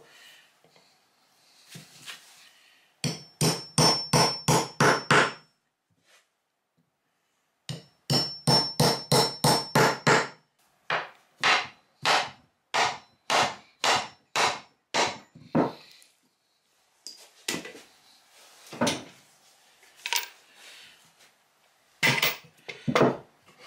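Hammer blows on plywood uprights, driving them onto 6 mm mild steel rods. There are two quick runs of blows, about three to four a second, with a pause between, then slower, spaced blows and a few scattered taps near the end.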